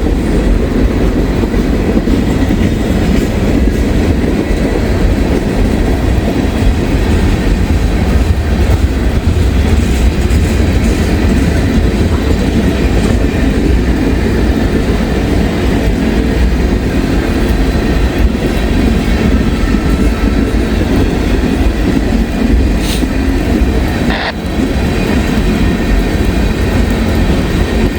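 Long freight train rolling past at slow speed: a steady rumble of railcar wheels on the rail with clickety-clack over the rail joints.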